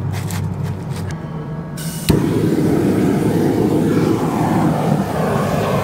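Propane roofing torch burning with a steady roar as it heats the bitumen roofing. About two seconds in, a sharp click is followed by a sudden jump to a louder, fuller roar as the flame is opened up.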